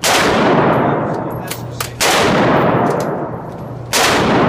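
Three single gunshots about two seconds apart, each a sharp crack with a long echoing decay in an indoor shooting range.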